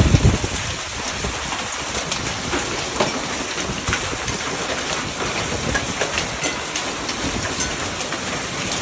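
Hail and rain pelting hard surfaces: a steady hiss of rain with many sharp, irregular knocks of hailstones striking, a few heavier thumps right at the start.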